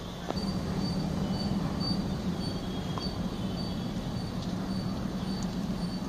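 Diesel-hauled train approaching out of sight: a steady low engine drone that swells about a third of a second in and keeps growing slowly louder.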